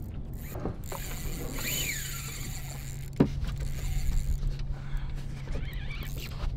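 A spinning reel being worked against a strong fish on the line, with a mechanical whir and a sharp click about three seconds in, over a steady low hum.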